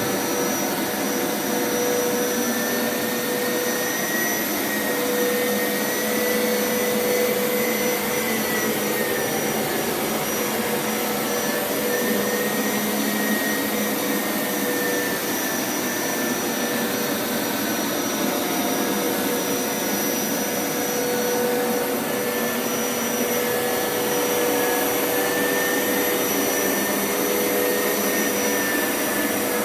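Hoover Power Scrub Elite carpet washer running steadily on carpet, its suction motor and rotating brushes going without a break. A steady whine, with a higher tone that drifts slightly in pitch.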